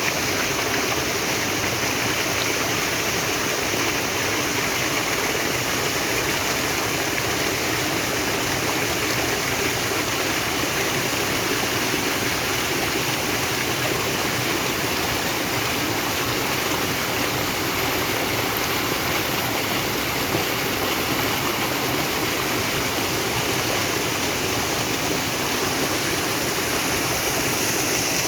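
Natural stream of water flowing and splashing steadily, an even rushing with no breaks.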